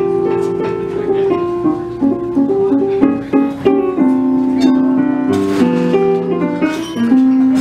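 Roland RD-700 digital stage piano and electric bass guitar playing a jazz standard together, the piano sounding chords and melody over the bass line.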